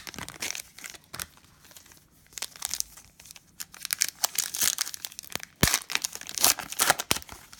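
Plastic foil trading-card pack wrapper being torn open and crumpled, in irregular crinkling rustles that grow busier in the second half, with one sharp click a little past the middle.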